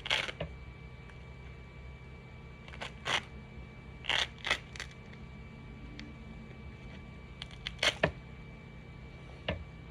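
Scattered light clicks and knocks of hard 3D-printed plastic being handled, about eight in all with a cluster near 8 s, over a steady low hum.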